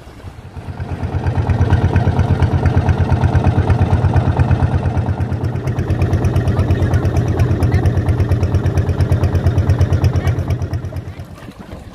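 Small motorboat's engine running with a steady, fast throbbing beat, rising in level about a second in and falling away near the end.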